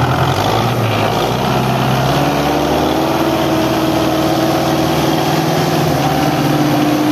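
Belarus tractor's diesel engine running loudly under load as it pulls a trolley piled with sugarcane. Its pitch rises slightly about two seconds in, then holds steady.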